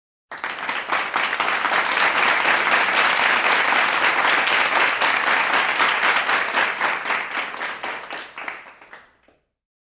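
Applause from a medium-sized crowd: dense clapping that starts abruptly, holds steady, then thins out and dies away about nine seconds in.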